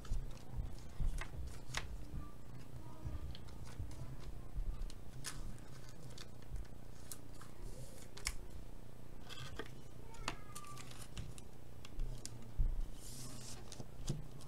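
Light clicks and plastic rustles of a trading card being handled and slid into a clear sleeve and a rigid plastic top-loader, over a low steady hum. A short hissing slide comes near the end.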